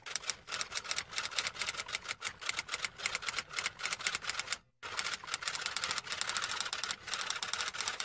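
Rapid, irregular typing clicks, several a second, with a short break about halfway through.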